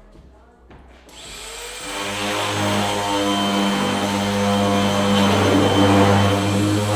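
A motorized machine switches on about a second in, builds up over about a second, then runs steadily with a strong hum over a rushing noise.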